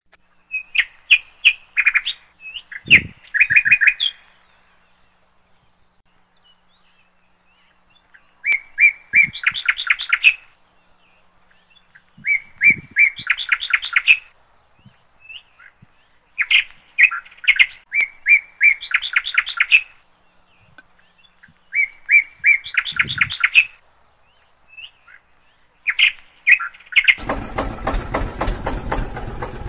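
A songbird singing phrases of quick repeated notes, one phrase every few seconds with pauses between them. Near the end an engine sound starts up with a rapid, even pulse and carries on.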